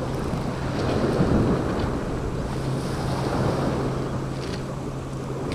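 Sea waves washing onto a shingle beach, with wind buffeting the microphone and a steady low hum underneath.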